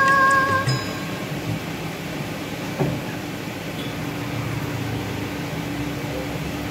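The last held note of a sung backing track ends about a second in, leaving a steady low mechanical hum with a faint steady tone.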